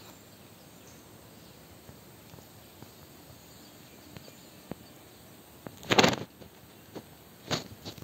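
Quiet forest background broken by two short, loud crackling rustles of dry leaves close to the microphone, about six seconds in and again about a second and a half later, with a few faint clicks before them.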